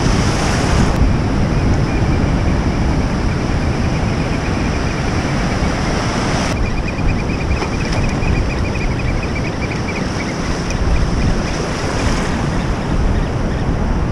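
Ocean surf washing steadily through the shallows, with wind buffeting the microphone.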